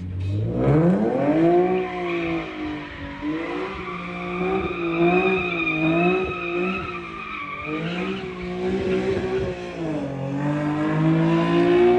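Car exhaust with a second resonator fitted, the engine revving: its pitch climbs steeply in the first two seconds, then rises and falls repeatedly, drops about ten seconds in and climbs again.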